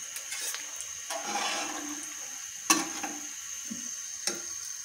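Samosas deep-frying in hot oil with a steady sizzle. A sharp metal clack a little past halfway, and a lighter one near the end, as the frying utensils knock against the pan.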